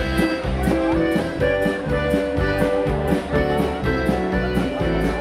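Slovenian-style polka band playing: held accordion chords over a steady beat of bass and drums.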